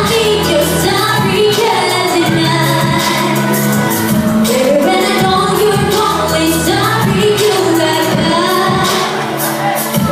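A woman singing a pop song live into a handheld microphone over instrumental accompaniment, her voice amplified through loudspeakers.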